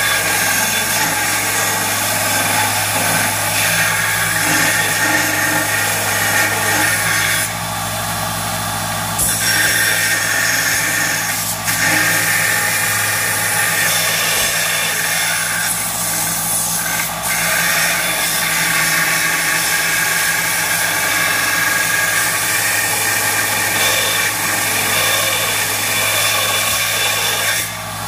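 Bench grinder running with a steady motor hum while a welded steel part is held to the wheel, the grinding noise carrying on in long spells with a few short breaks where the work is lifted off. The weld is being ground down and cleaned up.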